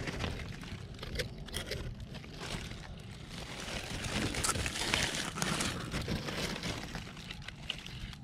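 Cucumber leaves and vines rustling and crackling as they are handled and pushed aside, irregular, with a louder stretch about four to six seconds in.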